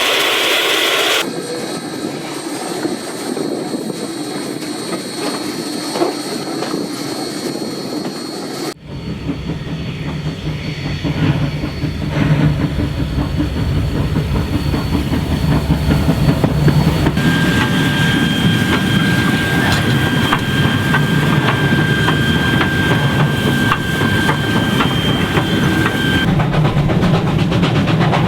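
Steam train running along the track, its wheels clicking over the rail joints. The sound changes abruptly twice early on where shots are cut together, and a steady high tone sounds over the train for several seconds in the second half.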